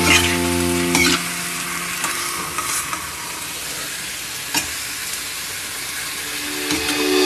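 Bite-size chicken pieces with onion and garlic sizzling as they sauté in oil in a frying pan. A metal spoon stirring them scrapes and knocks against the pan a few times.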